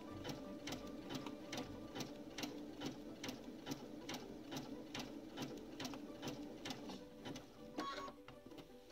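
Domestic sewing machine sewing slowly with a small zigzag stitch, the needle going in and out with a steady tick about three times a second.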